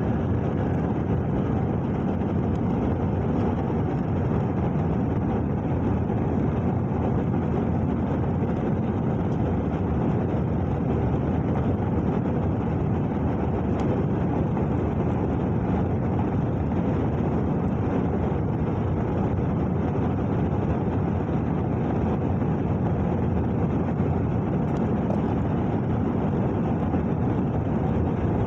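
Steady drone of an airliner cabin in flight: engine and airflow noise, even and unchanging, with most of its weight low in pitch.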